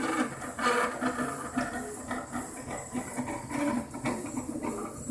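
Craftbot Plus 3D printer running, its stepper motors whining in short tones that keep changing pitch as the head moves, with a repeated rattling clatter. The rattle is the fault the owner is showing.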